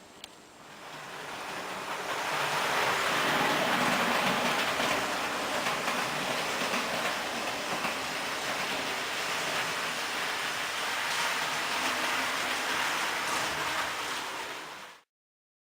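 Märklin H0 model train running along the track, a steady rolling rattle of small wheels and motor that swells over the first two seconds. It cuts off abruptly near the end.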